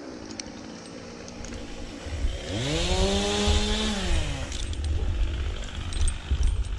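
Two-stroke chainsaw idling, revved up to full throttle for about a second and a half around the middle, then dropping back to idle.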